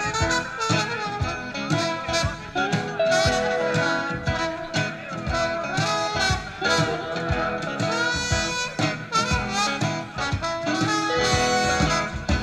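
Live acoustic blues played by a band: acoustic guitars with a lead melody over a steady beat.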